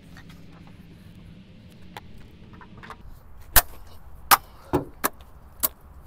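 A hammer striking parts in a Ford hatchback's open engine bay: five sharp blows in the second half, a little under half a second apart, the first the loudest, some leaving a brief metallic ring.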